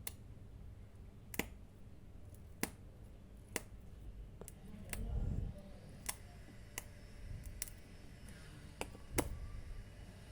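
Sharp, separate clicks at irregular intervals, roughly one a second, with a dull low thump about five seconds in.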